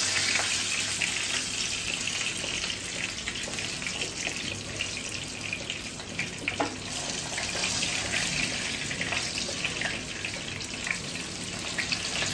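Hot oil sizzling and spattering hard around pumpkin-leaf-wrapped lentil paste parcels shallow-frying in a frying pan: a steady hiss full of small crackles. A single sharper click comes about six and a half seconds in.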